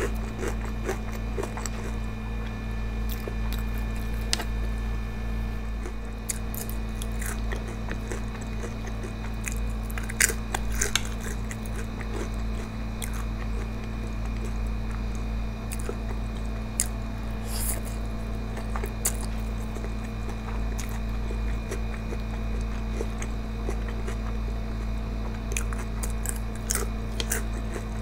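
A person chewing food close to the microphone, mainly a mouthful of instant noodles, with scattered short wet mouth clicks and small crunches. A steady low hum runs underneath.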